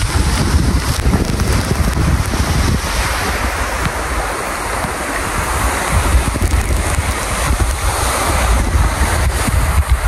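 A tall waterfall pouring into its pool close by: a loud, steady rush of falling water, with wind buffeting the microphone as a low rumble.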